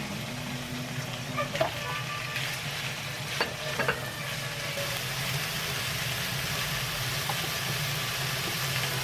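Sliced pork and bell peppers sizzling in a frying pan as they are stir-fried, with a few short knocks between about one and four seconds in as the vegetables go in; from about five seconds the sizzle is louder and steadier.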